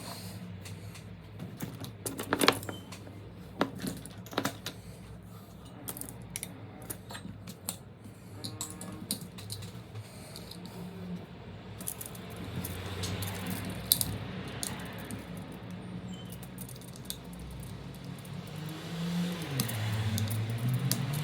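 Scattered small clicks and light metallic taps from handling soldering tools on an LED strip during a soldering job, over a low background hum.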